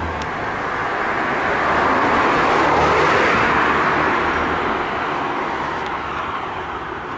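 A car passing on the road, its tyre and engine noise swelling to a peak about three seconds in and then fading away.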